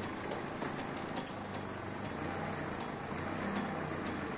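Forklift engine running steadily with a low drone while the forklift lifts and moves a load, with a few faint clicks.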